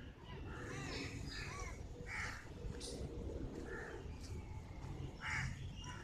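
Crows cawing several times, with short calls spaced a second or more apart, over a fairly faint outdoor background with a few brief higher bird chirps.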